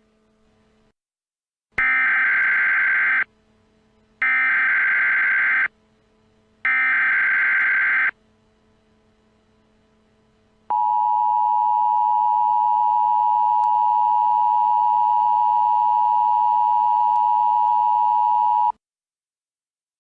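Emergency Alert System (EAS) alert tones. First come three identical bursts of screeching SAME digital header data, each about a second and a half long. After a short pause comes the EAS two-tone attention signal, a harsh steady dual tone that holds for about eight seconds and then cuts off.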